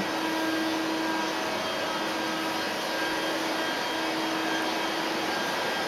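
Steady whirring hum of running workshop machinery, with a constant low tone held under the noise.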